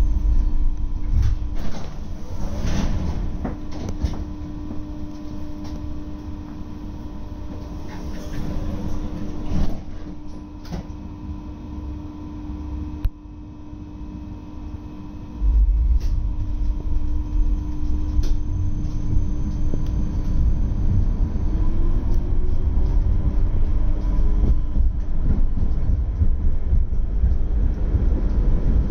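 Inside a GT6M tram: a steady hum while it stands at the stop, then about halfway through a low rumble of wheels on rails sets in as it pulls away, with the motor whine rising in pitch as it picks up speed.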